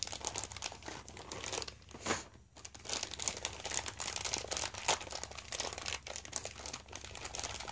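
Clear plastic parts bags crinkling and crackling irregularly as hands handle them and pull them open, a bag nested inside another bag, with a short pause a little over two seconds in.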